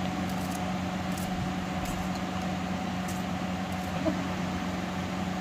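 Steady low hum with a few constant tones, unchanging throughout, and no distinct knocks or other events.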